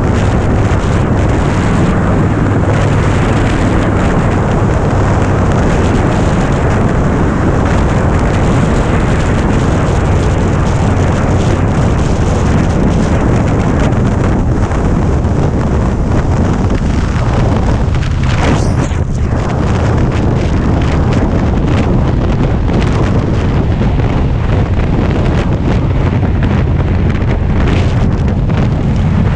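Heavy wind noise on the microphone at highway speed, over the low, steady drone of a Harley-Davidson Dyna Street Bob's V-twin engine cruising.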